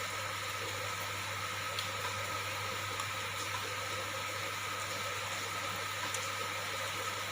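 Steady hiss of heavy rain falling, with a few faint ticks, over a low steady hum.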